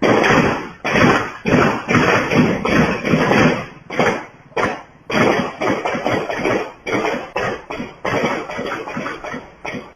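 Gunfire from assault rifles, many shots in quick, irregular succession, several a second at times, each with a short echoing tail. It is picked up by a CCTV camera's low-quality microphone.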